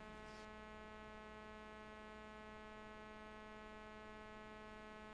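Near silence with a faint, steady electrical mains hum: a buzzing drone of many even, unchanging tones that holds the same all through.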